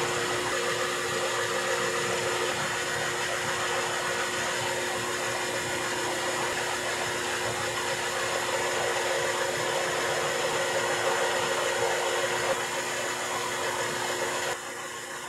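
Metal lathe running steadily as its cutting tool faces off the end of a 3-inch round bar: an even machine hum with one steady tone in it. It drops to a quieter run about a second before the end.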